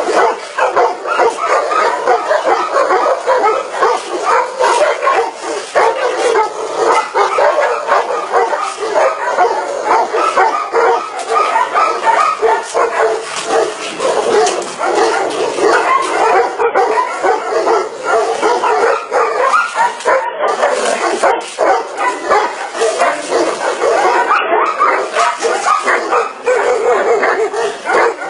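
Many dogs barking and yelping at once, without a pause, their calls overlapping into a continuous din.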